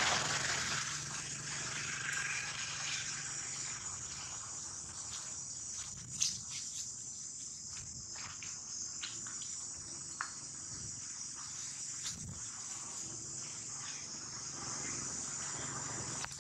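Steady, high-pitched chorus of insects droning in dry forest, with a few short clicks over it, the sharpest about six seconds in.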